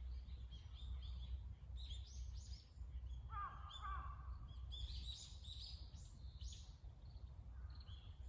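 Woodland birdsong: many small birds chirping in quick, overlapping high calls, with one lower, wavering call about three seconds in, over a steady low rumble.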